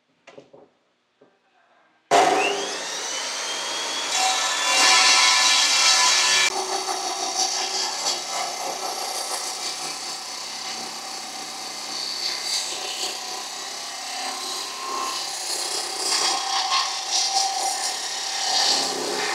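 Large hand-held electric circular saw starting up about two seconds in, its whine rising as the motor spins up. It then cuts steadily through a wooden tabletop, with a loud rasping cutting noise.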